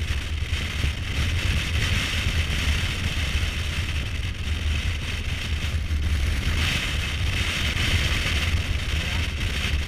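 Kawasaki Versys 1000's inline-four engine running steadily at cruising speed, a constant low rumble, with wind rushing over the microphone that swells and fades.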